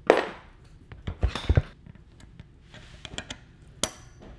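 Screwdriver working at the retaining clip and washer on a lawn mower's front spindle shaft, steel on steel. A sharp metal clack right at the start, two low knocks about a second and a half in, and a last sharp click near the end.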